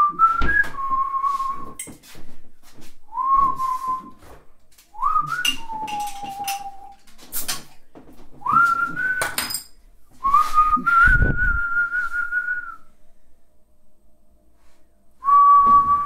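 A man whistling a slow tune in several short phrases, each note sliding up into a held pitch. Scattered clicks and knocks, and a low thump about eleven seconds in.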